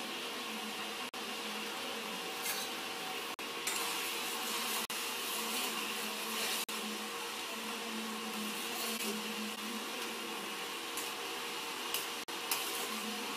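Induction cooktop running with a steady fan-like whirr and faint hum. A spoon scrapes and taps in a steel pan of heating jaggery water a few times, most noticeably about 4 seconds in and near the end.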